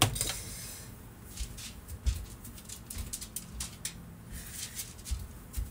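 Scattered light clicks and taps of makeup items being handled, with a few soft low thumps.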